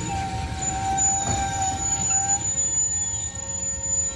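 Freight train of tank cars rolling past: a steady low rumble of wheels on rail. Over it run thin, steady squealing tones from the wheels, the lower one fading out about halfway through.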